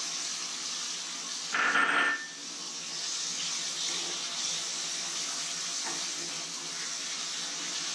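Chopped tomatoes sizzling in hot oil and fried onions in an aluminium kadai, a steady hiss, with a louder burst about two seconds in as the food is stirred with a spatula.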